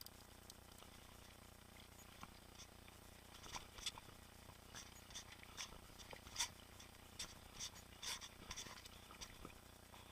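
Faint, irregular clicks and light rattles from a mountain bike riding over the trail. They come more often in the second half.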